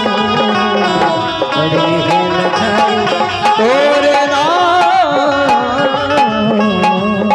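Live Bundeli folk music: steady held harmonium chords with a drum keeping a regular beat, and a melody line that bends and slides in pitch about halfway through.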